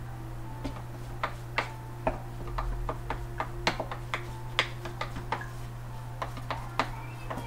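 Irregular clicks and taps of a hand and spoon scraping ground yellow split peas out of a plastic food-processor bowl, over a steady low hum.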